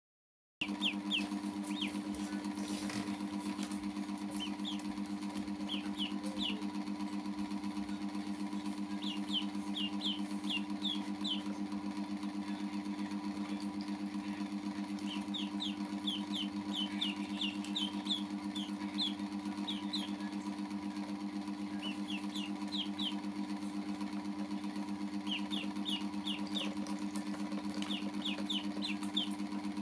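Ducklings peeping in quick runs of short, high peeps, over a steady low hum.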